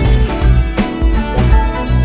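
Background music: rock-style guitar over a steady drum beat.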